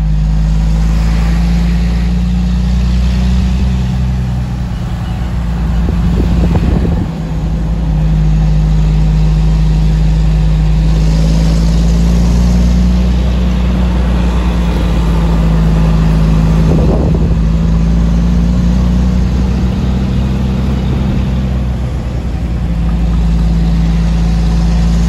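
Heavy truck's diesel engine running steadily while pulling uphill, heard inside the cab, with a brief dip in level about seven seconds in.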